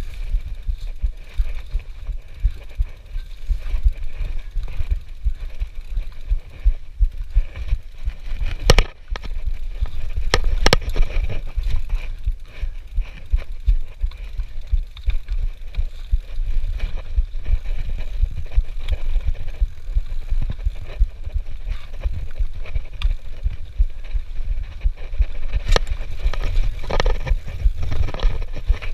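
Mountain bike rolling over a rough dirt trail: a steady low rumble and rattle from tyres and frame over the ground, with sharp knocks at about nine, ten and a half and twenty-six seconds in as it hits bumps.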